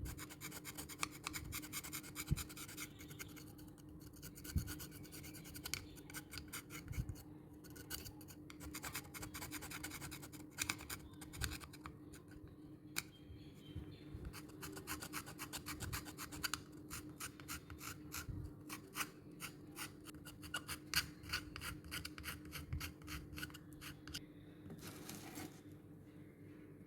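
Rapid back-and-forth scrubbing strokes on rusty steel, coming in quick runs with short pauses between them, under a faint steady low hum.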